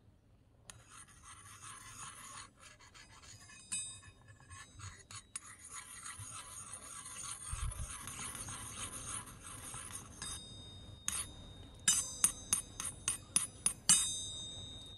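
Small metal spatula scraping around the inside of a miniature iron wok with oil in it, a steady scratchy rasp of metal on metal. Near the end the spatula strikes the wok about a dozen times in quick succession, sharp ringing metallic clinks.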